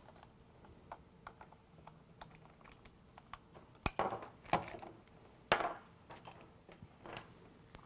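Ethernet patch cables being handled and plugged in: light plastic clicks and rustling, with one sharp click about four seconds in.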